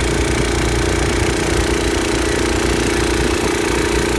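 Small lawnmower engine driving a converted 6 hp Johnson outboard's lower unit, running steadily at constant speed.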